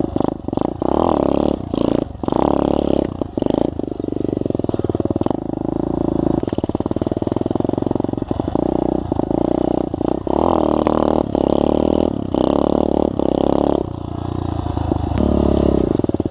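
SSR 125 pit bike's single-cylinder four-stroke engine running and revving as it is ridden, the throttle opening and closing so the pitch keeps rising and falling. The engine note eases off around two-thirds of the way through, then picks up again near the end, with scattered knocks throughout.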